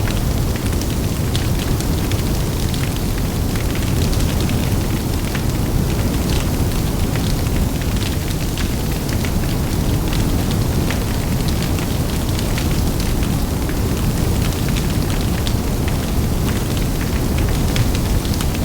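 Large bonfire burning, with a steady low rush of flames and wind under frequent sharp crackles and pops throughout.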